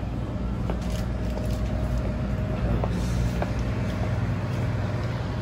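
Steady low hum of a shop interior, with a few faint clicks and a faint held tone in the first half.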